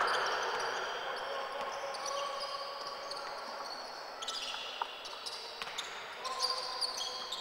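Basketball in play on a hardwood court: sneakers squeaking and the ball bouncing, in an echoing sports hall. A louder hall noise fades away over the first second or two.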